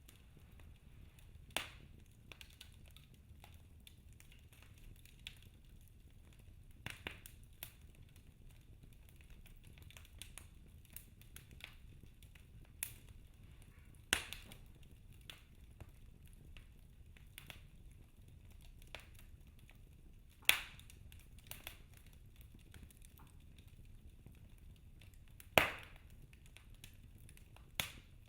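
Wood fire crackling in a fireplace: scattered sharp pops and snaps, a handful of them much louder than the rest, over a low, steady rumble of the flames.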